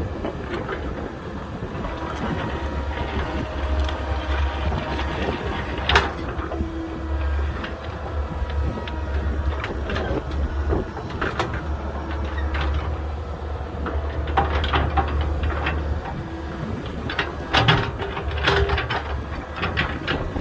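Komatsu 120 excavator's diesel engine running steadily while its bucket scrapes and knocks through limestone rock in a trench. There is a sharp clank about six seconds in and a cluster of knocks near the end.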